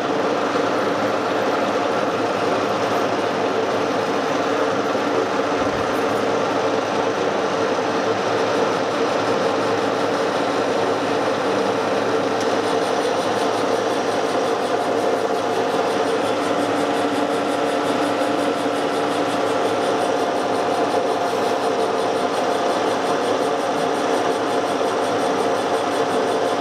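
Metal lathe running with its spindle turning a gear blank on a mandrel: a steady mechanical hum with several held tones.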